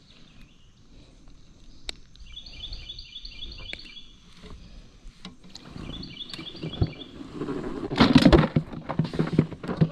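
A bird sings two quick runs of repeated high notes. About eight seconds in comes a loud burst of splashing and knocking as a hooked fish is brought in.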